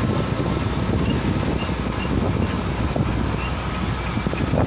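Heavy truck under way on a rough gravel road, heard from its cab: a steady engine drone mixed with road and tyre rumble.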